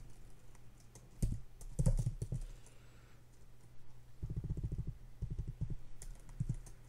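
Keystrokes on a computer keyboard, in several short bursts of typing.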